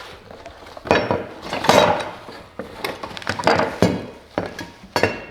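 Metal and wooden parts of a bench drill press stand clattering and knocking as they are handled and unpacked, in a string of irregular clunks and rattles.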